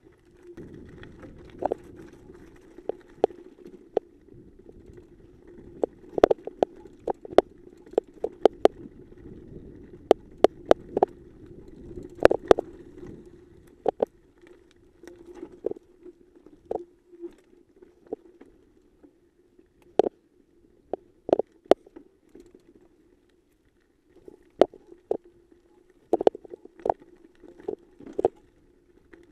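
Mountain bike rolling down a rough, rocky dirt trail: a steady low hum with many sharp clacks and rattles as it bumps over rocks. The rattling eases for a few seconds past the middle, then picks up again near the end.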